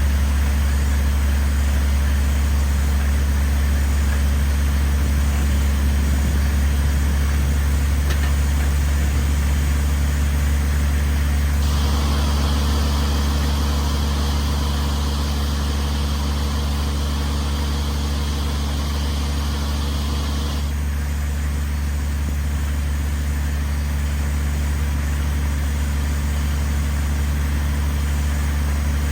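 Engine of a well-drilling rig running steadily with a low, even hum. About twelve seconds in, a hiss joins it and stops again about nine seconds later.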